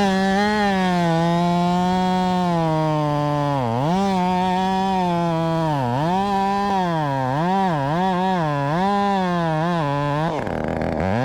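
Modified Husqvarna 562XP two-stroke chainsaw running at high revs while cutting. Its pitch sags repeatedly as the chain loads up in the wood, then drops lower and rougher near the end.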